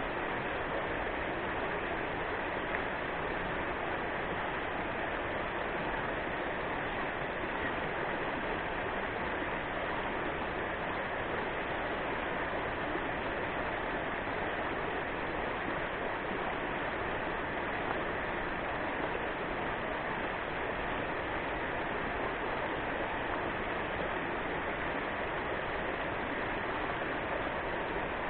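Rushing water of a mountain river over rapids: a steady, even rush.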